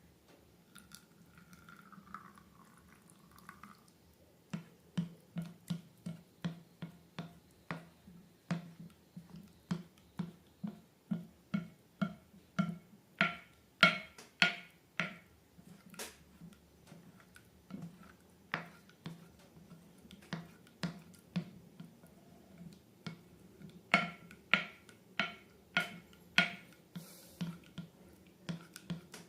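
Slime being squeezed and worked by hand, making a run of sharp wet clicks and pops about two a second, some much louder than others.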